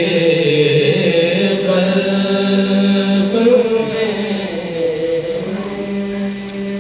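A marsiya chanted unaccompanied by male voices, with long, drawn-out held notes.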